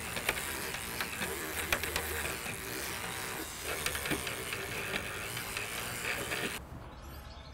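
Electric toothbrush running, its spinning head scrubbing soapy cleaner against the chrome grille badge rings, with small ticks as it works into the corners. The sound cuts off about a second before the end.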